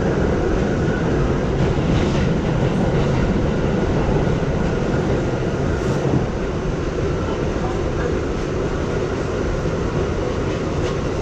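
An R62A subway train running along the track, heard from inside the front car: a steady, loud rumble of wheels on rail, with a few faint clicks from rail joints.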